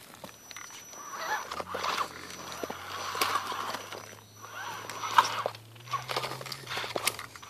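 RC rock crawler with a brushless electric motor crawling over loose rocks: tires scrabbling and stones clicking and clattering in irregular bursts, over a low motor hum that shifts in pitch a few times.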